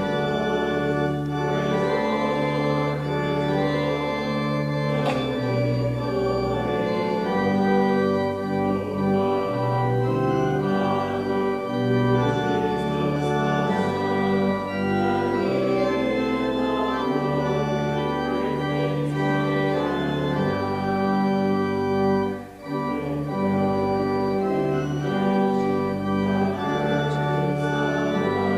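Church organ playing a hymn in slow, held chords over a bass line, with a short break about two-thirds of the way through.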